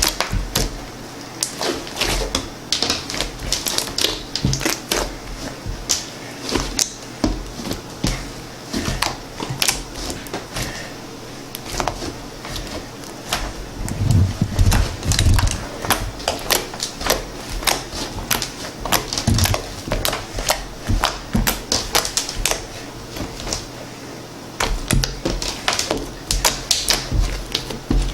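Homemade coffee-coloured slime being squeezed and worked by hand, giving rapid, irregular clicks and pops as air pockets burst, with a few duller squishes in the middle.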